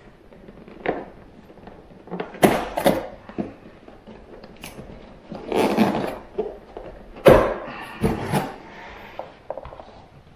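Long cardboard box being handled and its lid opened: a series of knocks and thuds from the cardboard, with a longer scraping rustle about five to six seconds in and a sharp thump just after seven seconds.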